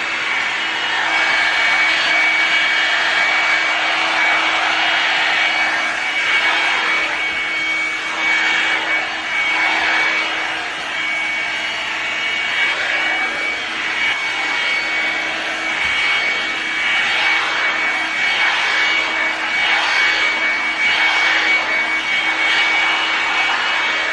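Revlon One-Step hair dryer brush running steadily: the rush of its blowing fan with a low motor hum and a thin high whine, swelling and dipping a little.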